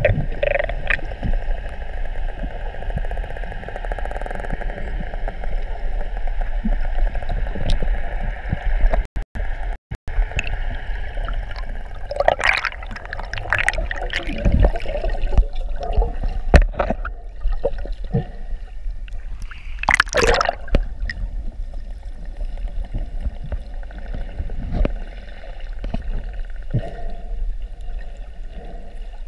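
Underwater recording: a steady rush of water with a low rumble and a faint droning hum, broken by a few gurgling bubble bursts, the loudest about twenty seconds in. The sound cuts out briefly twice around nine to ten seconds in.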